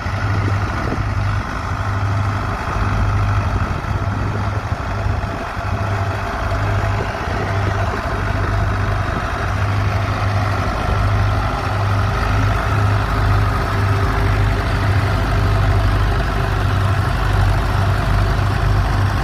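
Fordson Power Major tractor engine running steadily with a deep, even pulse.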